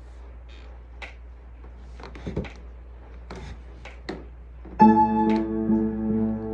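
A few faint clicks and knocks over a low hum, then nearly five seconds in a keyboard chord starts and is held, steady with a slight pulse: the introduction of a song.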